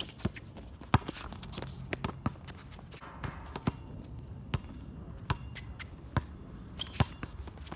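Basketball dribbled on an outdoor hard court: sharp bounces at an irregular pace, roughly one a second.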